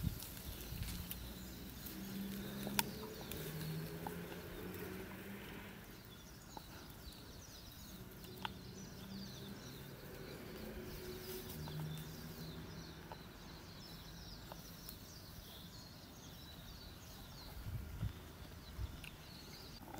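Golden retriever puppy chewing, with faint scattered clicks of its teeth, while small birds twitter in the background.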